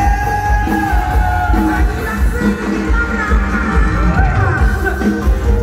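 Live mor lam band amplified through a concert PA: a singer holds long, sliding notes over a steady, heavy bass beat.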